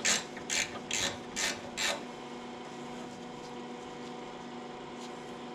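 Hand ratchet wrench turning a bolt on a tractor's hood enclosure: about five quick ratcheting strokes, roughly two a second, in the first two seconds, then they stop and only a faint steady hum is left.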